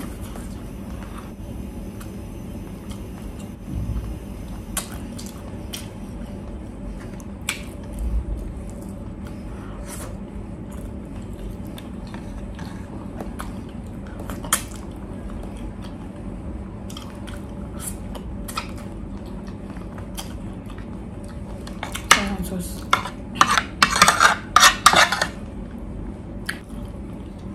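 Close-up eating sounds: scattered small clicks and smacks of chewing and handling food by hand. About 22 seconds in comes a quick run of louder clinks and scrapes of a metal spoon against a dish as sauce is scooped.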